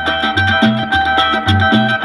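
Peruvian Amazonian cumbia playing from a vinyl record on a turntable: a repeating bass line under held melody notes and steady, even percussion strokes.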